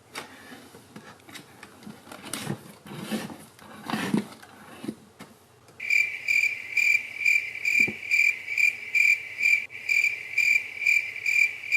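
Faint rustling and light knocks, then, from about six seconds in, a cricket-like insect chirping in a steady high pulsing trill about twice a second.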